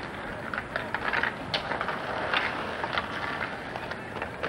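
Street hockey sticks clattering: an irregular run of sharp clacks as the sticks strike each other and the asphalt in a scramble at the goal.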